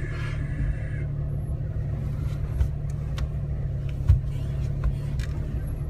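A vehicle engine running steadily at low revs, with a few sharp clicks or knocks on top; the loudest knock comes about four seconds in.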